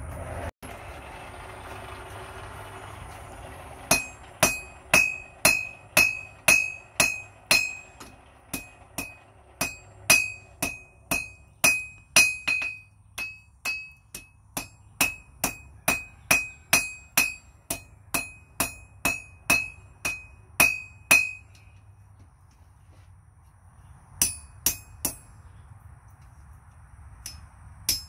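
Blacksmith's hand hammer striking a red-hot iron bar on an anvil, a steady rhythm of about two blows a second, each with a bright ringing note from the anvil. The hammering stops for a few seconds near the end, then a few more blows follow.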